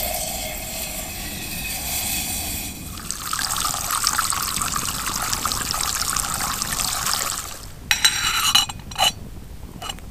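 Water being poured into a titanium cook pot in a steady stream for about seven seconds, its sound changing about three seconds in, followed by a few short clinks of the metal pot near the end.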